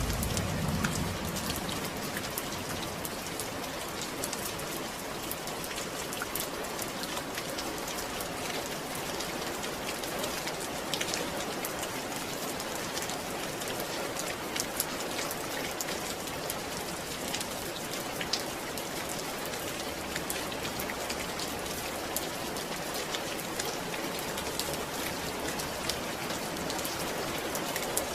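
Steady rain falling, an even hiss with many separate drops ticking through it. A low rumble dies away in the first second.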